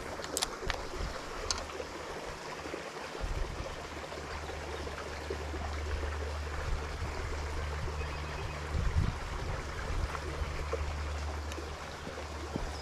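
Water running over a small creek spillway, a steady rushing with a low rumble that swells and fades. A few sharp clicks come in the first couple of seconds.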